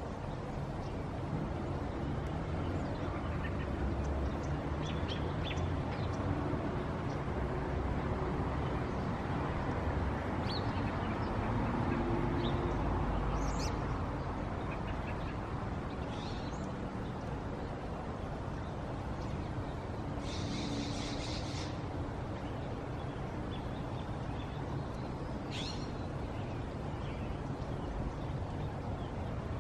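Outdoor ambience by the water: a steady low background rumble with scattered short calls of birds, and about two-thirds of the way through, a brief burst of rapid high chattering.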